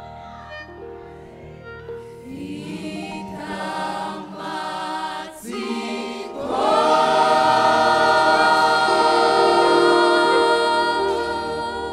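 Kinyarwanda gospel song: singing over a soft sustained backing, swelling into a long held note about halfway through.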